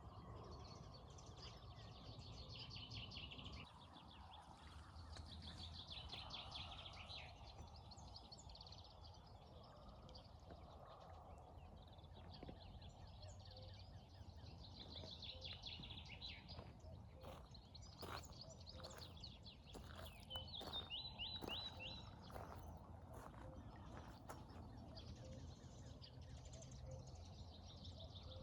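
Faint outdoor morning ambience: songbirds trilling and chirping again and again over a steady low rumble, with a few sharp clicks a little past the middle.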